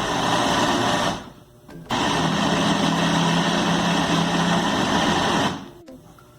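Countertop blender running, mixing coconut cake batter after the baking powder has gone in. It is switched off about a second in, starts again near two seconds with a steady motor hum, and stops at about five and a half seconds.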